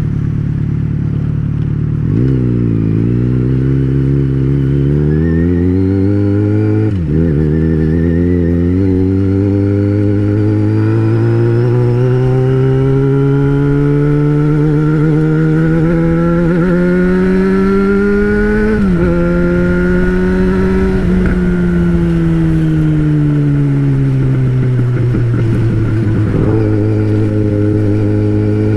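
Yamaha XJ6's 600cc inline-four engine under way. The revs climb from low, dip sharply at a gear change, climb again in one long pull, and dip at a second shift. Then they fall away as the bike rolls off and slows, and settle at a steady low speed near the end.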